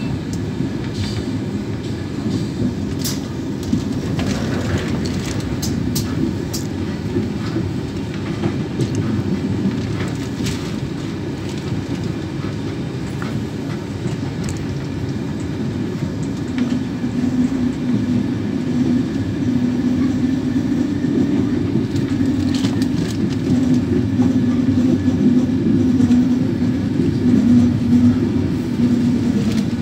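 Inside a moving Irish Rail Mk4 intercity carriage: a steady low rumble of the train running on the track, with scattered clicks and rattles. A steady hum joins about halfway through and grows a little louder toward the end.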